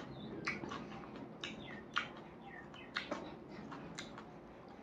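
Eating sounds of a person chewing a mouthful of rice and fish curry: an irregular string of wet smacks and short squeaky clicks from the mouth.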